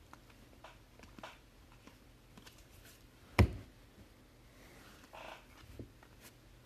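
Trading cards being handled: faint flicks and rustles as cards are slid through a stack, with one sharp knock about three and a half seconds in as a card is put down on the table, and a short swish of a card sliding a little later.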